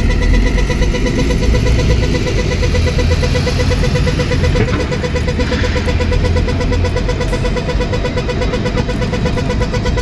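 City street traffic rumbling, with a pedestrian crossing signal beeping rapidly and steadily.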